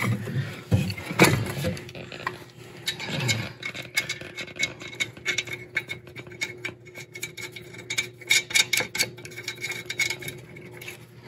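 Small metallic clicks, taps and scrapes of nuts being fitted by hand onto the flange studs of an aftermarket sport catalytic converter under a car, irregular and scattered throughout, over a faint steady hum.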